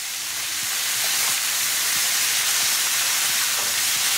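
Chicken thighs sizzling in hot olive oil in a fry pan on high gas as the pieces are turned over, a steady hiss with faint crackling spatters. The sizzle swells a little in the first second.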